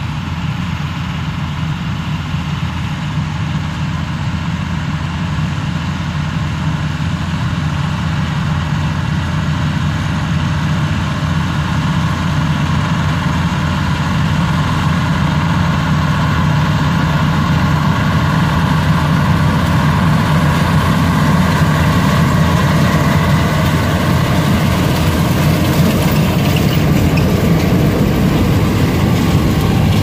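Massey Ferguson combine harvester running while harvesting soybeans, a steady engine and threshing drone that grows gradually louder as it comes up and passes close by near the end.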